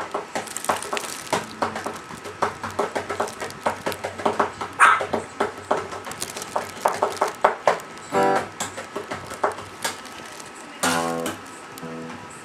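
Acoustic guitar picked note by note, unevenly. A Pomeranian's voice cuts in twice, once about two-thirds of the way through and once near the end.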